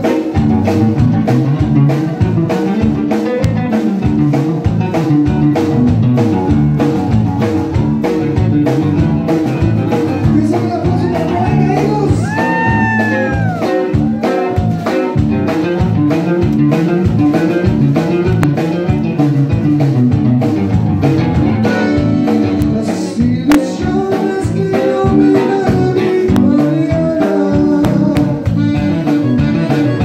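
Live accordion-led band playing: button accordion over electric guitar, bass guitar and a drum kit with a steady beat.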